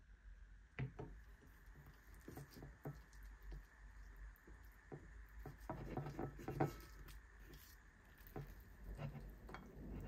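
Faint, irregular light taps and soft knocks, like small objects being handled, over a low steady hum. The taps bunch together around the middle and again near the end.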